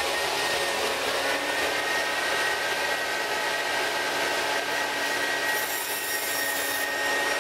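Table saw running at full speed, a steady motor whine with blade noise, as its blade cuts the interlocking key off the top of a foam insulated concrete form block.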